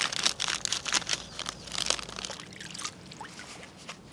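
Fish-meal and corn gluten bait being poured and mixed by hand: a quick run of small crackles, clicks and trickling that thins out and grows quieter about two seconds in.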